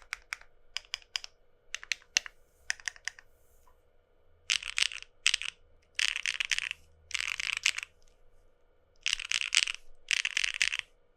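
Mechanical keyboard with lubed Keygeek M1 linear switches being typed on. For the first few seconds there are single keystroke clacks, then a series of dense bursts of rapid key presses, each under a second long with short pauses between.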